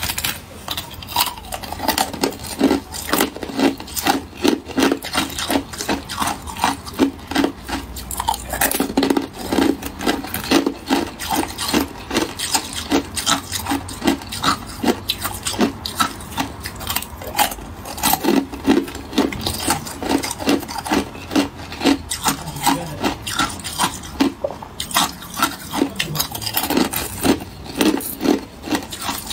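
Thin sheets of ice being bitten and chewed: a long run of quick, crisp crunches, several a second, with short pauses between bites.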